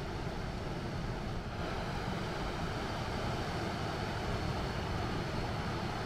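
Steady rushing of a river spilling over a low weir, a continuous even roar of white water with no pauses or changes.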